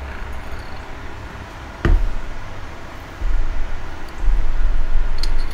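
A single sharp click about two seconds in as the parts of a transmission mainshaft and synchronizer are handled, then a low rumble that grows louder near the end.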